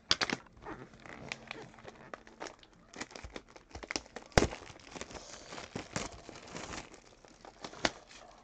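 A trading-card hobby box being cut open and unpacked: crinkling and tearing of its wrapping and cardboard, with scattered sharp clicks and snaps, the loudest about four and a half seconds in and again at six.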